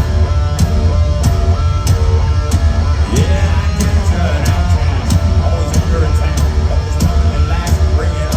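Live rock band playing at full volume: electric guitars and bass over a steady drum beat, with a drum hit about every two-thirds of a second.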